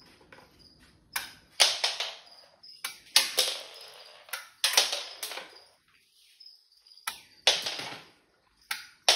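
Electronic sound effects from a Batbot robot toy's speaker, set off by placing a Batman figure on its shoulder pads: a quick string of sharp blasts, each dying away, with faint beeps between them.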